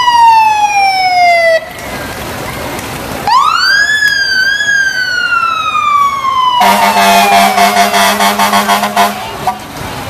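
Fire engine siren winding down in pitch and cutting off about a second and a half in. A few seconds later it winds up again, wavers at the top, then slowly falls. Near the end a loud, steady fire truck horn blast of about two and a half seconds sounds over the fading siren.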